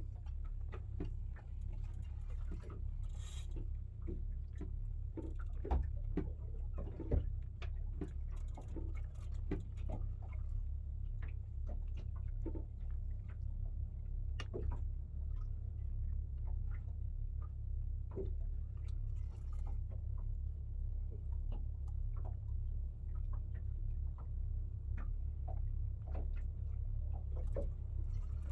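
Fishing reel working during the fight with a hooked fish: scattered, irregular clicks and ticks from the reel mechanism, over a steady low rumble.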